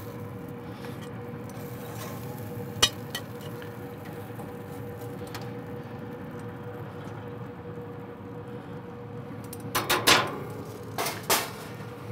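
Metal spatula clinking and scraping against pellet-grill grates and a ceramic plate as burger patties are lifted off: a single click about three seconds in, then a loud run of clinks near the end. Under it a steady hiss from the hot grill.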